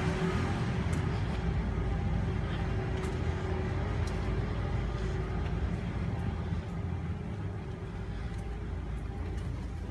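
Steady low rumble of a running engine from the foam-concrete pumping rig, slowly growing fainter.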